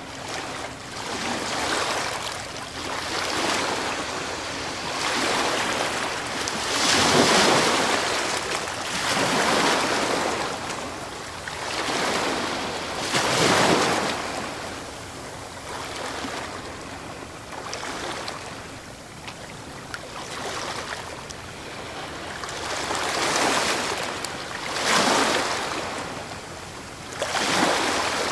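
Ocean waves breaking and washing on the shore, the surf swelling and falling away every few seconds, with several louder breakers.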